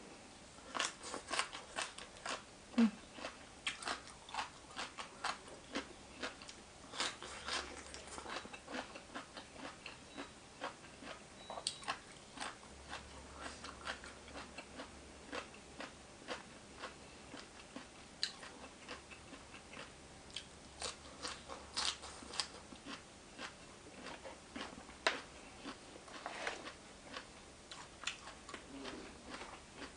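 A person chewing a mouthful of spicy green papaya salad close to the microphone: many short, crisp crunches and mouth clicks at an uneven pace.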